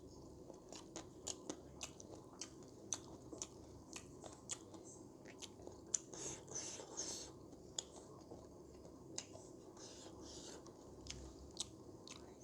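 A person chewing and biting mouthfuls of pork curry close to the microphone, with frequent sharp, irregular mouth clicks and wet smacks.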